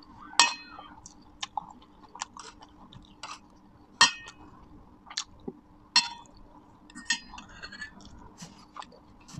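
Stainless steel fork and spoon clinking and scraping against a metal plate, with soft chewing between. Several sharp clinks ring briefly; the loudest come about half a second in and at about four seconds.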